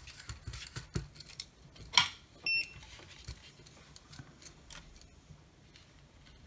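Clicks and knocks of tools being handled on a bench as a soldering iron is picked up and set to a circuit board, the sharpest knock about two seconds in. One short, high electronic beep follows about half a second later, then only faint small ticks.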